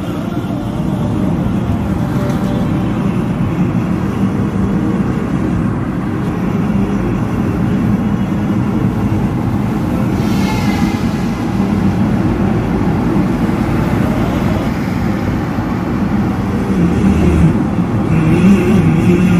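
Steady road and engine noise heard inside the cabin of a car driving at highway speed, a continuous low rumble with a faint hum.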